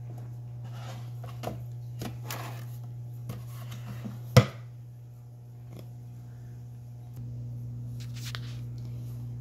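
A few light taps and knocks as a wooden cabinet panel is handled, with one sharp knock about halfway through, over a steady low hum.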